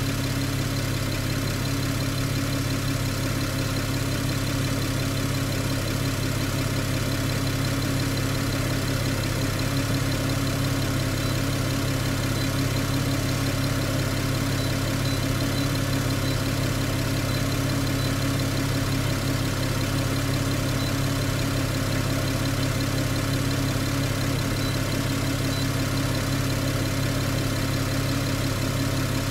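Porsche 987 Cayman/Boxster flat-six engine idling steadily, heard from inside the cabin.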